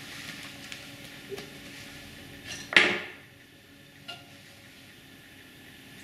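Pottery hand tools and an unfired clay pot being handled: a few faint clicks, then one sharp knock about three seconds in and a small click after it.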